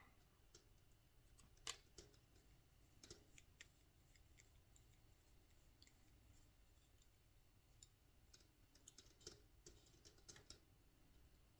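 Near silence broken by a few faint, scattered clicks of small hardware being handled.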